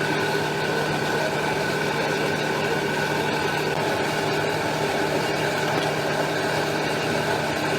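A machine running steadily, with a low hum and a higher steady whine over a dense mechanical noise.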